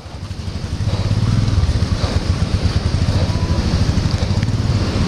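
Motorcycle engine running close by, a low rapid pulsing that grows louder over the first second and then holds steady.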